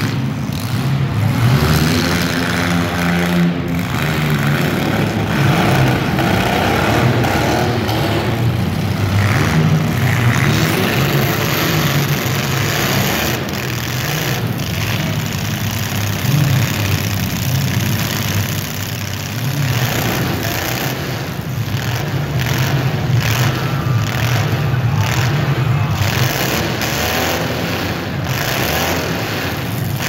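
Engines of several compact demolition derby cars running hard and revving, their pitch rising and falling again and again as the cars push and ram each other.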